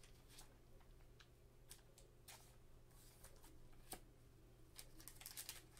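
Near silence with faint, scattered taps and clicks of trading cards and plastic card holders being handled on a table, one slightly louder tap about four seconds in and more taps near the end, over a faint steady low hum.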